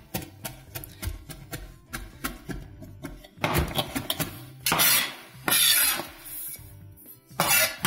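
Chef's knife finely chopping garlic on a plastic cutting board: a quick run of light taps for about three seconds, then several longer, louder scrapes as the blade is drawn across the board to gather the garlic.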